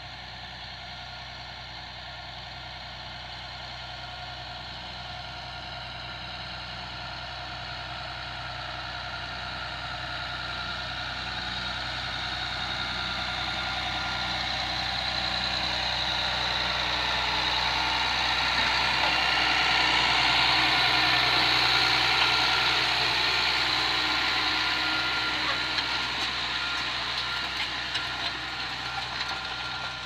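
Massey Ferguson 6465 tractor's diesel engine running under load as it works the field, growing steadily louder as it approaches, loudest about two-thirds of the way in as it passes, then fading.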